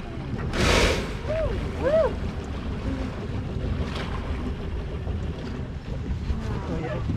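Grey whale blowing: one short, loud whoosh of breath about half a second in, followed by two short vocal exclamations that rise and fall in pitch. Steady wind and sea noise underneath.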